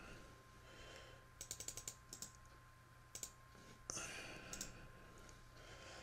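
Faint typing on a computer keyboard: a quick run of keystrokes about a second and a half in, then a few single key taps.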